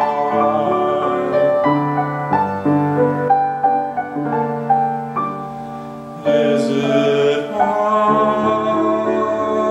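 Upright piano playing a slow passage of single notes and chords that grows quieter. About six seconds in, a man's solo voice enters with a long held, wavering note over the piano.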